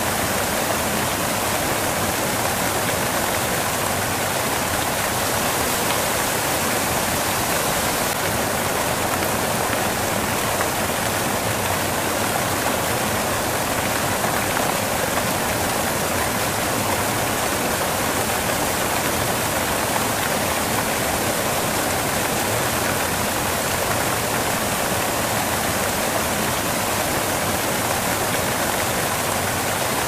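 Waterfall and cascading water: a steady, even rush of falling water with no breaks or changes.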